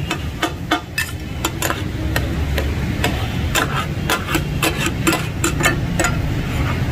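Two flat steel takatak blades clacking and scraping on a large iron griddle as they chop a tomato mixture, a few irregular metallic strikes a second over a faint sizzle, with a steady low rumble underneath.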